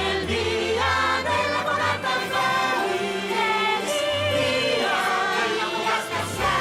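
A choir of voices singing a festive holiday song over orchestral backing music.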